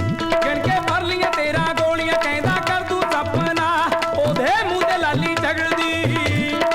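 Instrumental passage of a Punjabi folk-style song: hand drums with bass strokes that slide upward in pitch about twice a second, under a wavering, ornamented melody over a steady drone.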